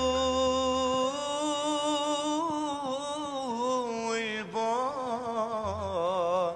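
A male voice singing an Arabic mawwal: long, unbroken melismatic notes, held and bent in fine wavering ornaments, with no words broken out.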